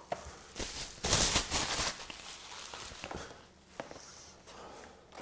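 Paper and cardboard packaging rustling and crinkling as a knife's box and its wrapping are handled, with a few light taps and clicks. The loudest rustle comes about a second in and lasts about a second.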